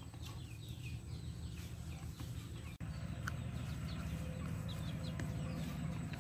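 Birds calling outdoors with short, scattered chirps over a steady low rumble.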